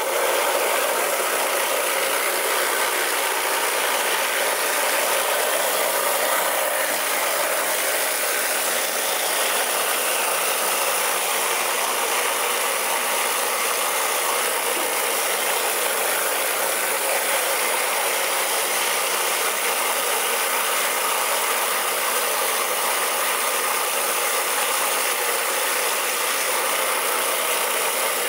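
Hot-water pressure washer surface cleaner with vacuum recovery working a concrete floor: a steady, unbroken hiss of high-pressure spray from the spinning jets under the housing, mixed with machine whir.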